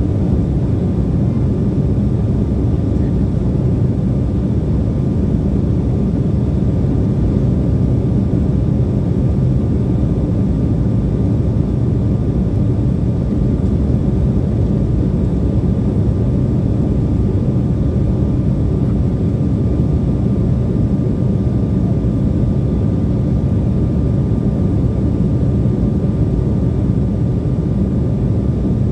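Steady cabin noise of an Embraer 175 airliner in flight: the low roar of airflow and its two GE CF34 turbofan engines, heard from a window seat inside the cabin, with a faint steady whine running through it.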